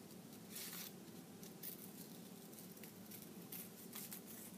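Faint, scattered scratches and rustles of paper being handled, the strongest about half a second in, over a low steady hum.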